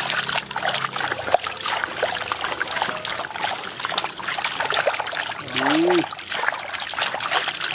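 Water poured into a vessel of boiled snails to wash them, running and splashing steadily with many small clicks and knocks mixed in. About six seconds in there is a brief hum from a voice.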